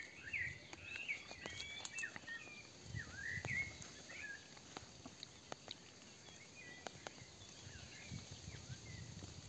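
Songbirds chirping in short up-and-down whistled notes, busiest in the first few seconds and again past the middle, with scattered faint clicks.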